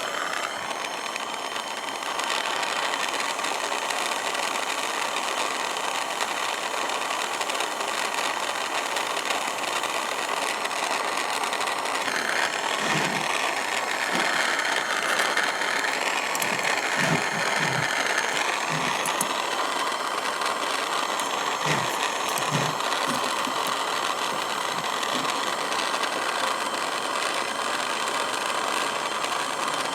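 Steady hiss of a jeweller's gas soldering torch flame, a little louder from about two seconds in and shifting in tone midway as the flame is worked around the ring.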